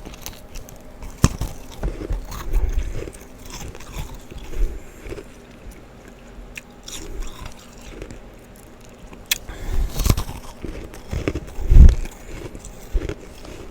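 Someone biting and chewing a dense chunk of freezer frost: irregular crisp crunches, the loudest a heavy crunch near the end.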